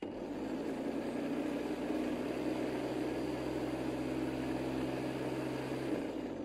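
IKRA IEVL 1738 electric lawn scarifier's 1700 W motor spinning the bladed scarifier roll, a steady hum over a whir. Near the end the motor is switched off and the roll spins down.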